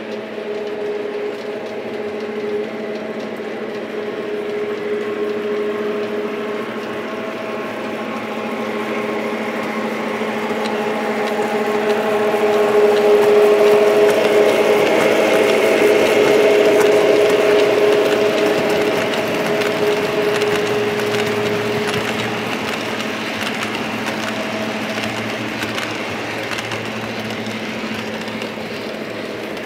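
Lionel O-gauge Texas Special F3 passenger train running on three-rail track, its motors humming steadily under a fast patter of wheel clicks. It grows louder toward the middle as the train passes close by, then fades.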